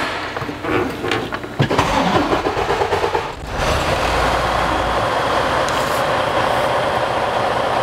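Heavy-duty truck's diesel engine cranked by the starter for about three seconds, then catching about three and a half seconds in with a low rumble and settling into a steady idle.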